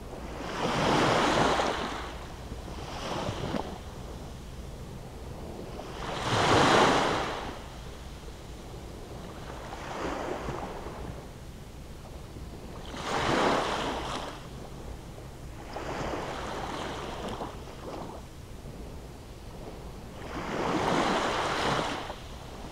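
Small waves of a calm sea breaking and washing up onto a sandy beach. Each wash swells and fades, a bigger one every six or seven seconds with smaller ones in between.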